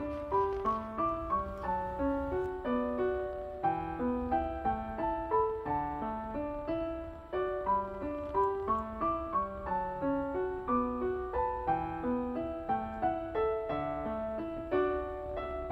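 Background music: a piano melody of quick, short notes over a steady low bass.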